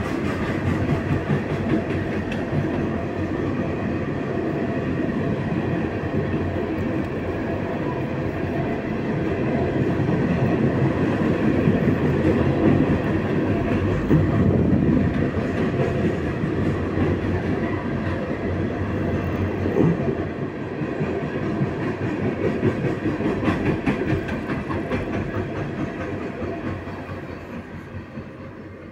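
Freight train of boxcars and covered hoppers rolling past close by: a steady rumble and clatter of the wheels on the rails, which fades over the last few seconds as the end of the train goes by.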